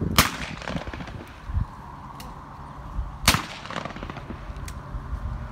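Two shotgun shots about three seconds apart, each followed by a short echo.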